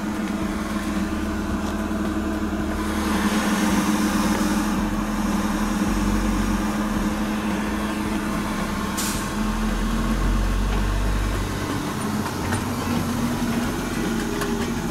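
Dyno-Mill Typ KDL bead mill running after being switched on: its electric drive and agitator give a steady mechanical hum with a low rumble, with a single click about nine seconds in.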